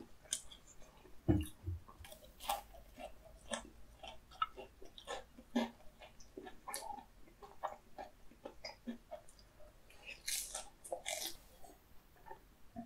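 Close-miked chewing of crispy battered Korean fried food (twigim): bites and irregular crunching, many small crackles a second.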